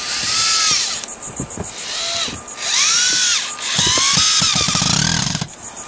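Corded electric drill fastening OSB roof sheathing: about five short runs of the motor, each a whine that rises and then falls in pitch.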